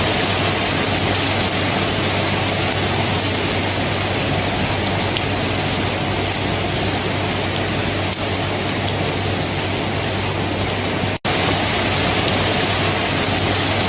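Steady, heavy rain falling. The sound cuts out for a split second once, about eleven seconds in, then carries on unchanged.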